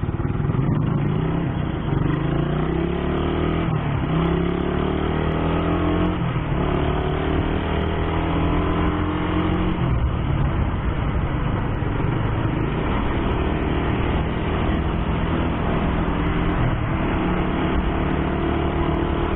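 Stock motorcycle engine running under way, its pitch climbing and dropping back at gear changes a few times in the first ten seconds, then running steadily, over a constant rushing road noise.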